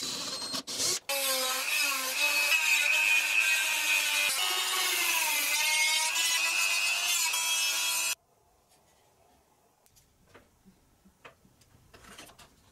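Electric drill boring into thin plywood, then a handheld rotary tool sanding the inside of a cutout in a plywood part, its motor whine dipping and rising as it loads against the wood. It cuts off suddenly about eight seconds in, leaving faint clicks of small plywood pieces set down on the bench.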